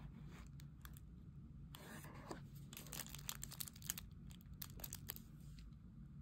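Faint crinkling of the thin plastic film wrapper on a convenience-store triangle kimbap as it is picked up and handled, with a longer rustle about two seconds in and a run of small crackles a little later.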